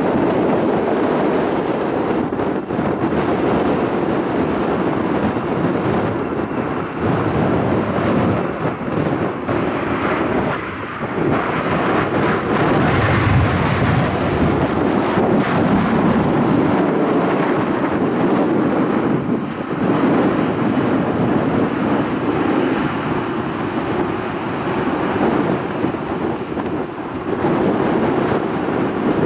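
Boeing 777-300 jet engines on the landing roll just after touchdown: a loud, steady rumbling roar that swells for a few seconds about halfway through.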